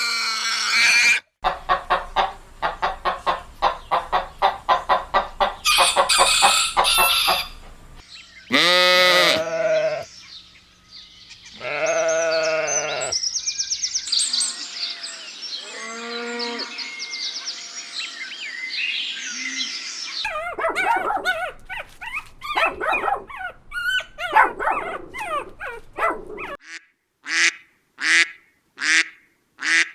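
Farm animal calls in a string of short clips, mostly poultry honking and clucking. The calls come in quick runs at first, then as a few longer pitched calls, and near the end as evenly spaced short calls about one a second.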